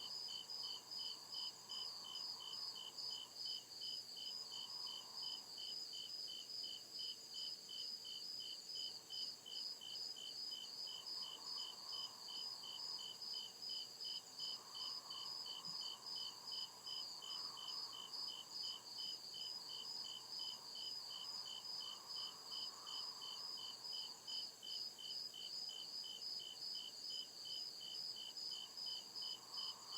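Crickets chirping in a steady, even rhythm of about two chirps a second, over a continuous higher-pitched insect trill.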